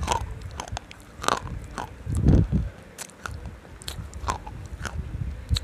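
A person biting and chewing something crunchy close to the microphone: a string of sharp, crisp cracks between chews, with one louder, deeper crunch a little over two seconds in.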